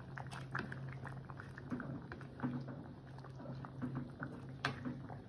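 Pot of coconut-milk fish stew bubbling on the stove, with many small irregular pops over a steady low hum.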